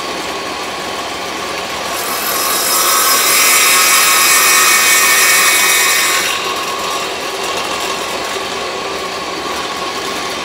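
Table saw running, its blade taking a shallow cove-cutting pass, raised about a sixteenth of an inch, through a wood block fed across it at an angle. The cutting noise swells about two seconds in, holds for about four seconds, then falls back to the saw's free-running hum.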